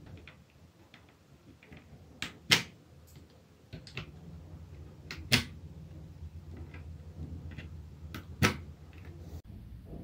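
Kailh Box Red switches being pulled out of a mechanical keyboard's hot-swap sockets with a wire switch puller and set down on the desk. Three loud sharp plastic clicks, about three seconds apart, with fainter ticks in between.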